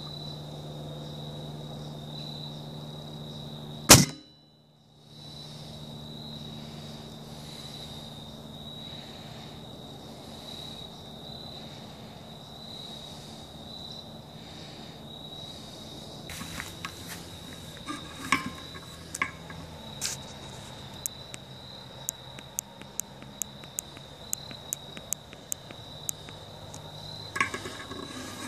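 A compound bow shot about four seconds in: a single sharp, loud snap of the string released, picked up close by a phone mounted on the bow. Crickets trill steadily on one high tone throughout, and light clicks tick at about two a second in the second half.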